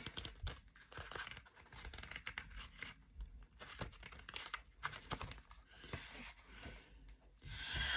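Pages of a thick paperback booklet being flipped through and handled: a run of quick papery rustles and small clicks.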